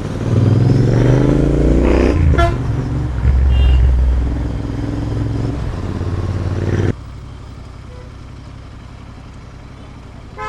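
Royal Enfield Interceptor 650 parallel-twin engine revving up over about two seconds, then running at steady low revs. A vehicle horn toots briefly a few seconds in. About seven seconds in the engine sound drops suddenly to a quieter steady traffic hum.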